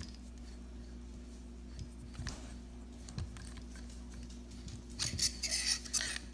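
Plastic and metal parts of a tripod being handled and unscrewed: a few light clicks, then a short burst of scraping and rubbing about five seconds in, as the centre-column end piece is twisted off by hand. A low steady hum lies underneath.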